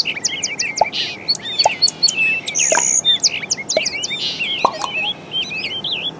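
A dense chorus of songbirds chirping and trilling, many short high calls overlapping; the same stretch of calls repeats about every three seconds.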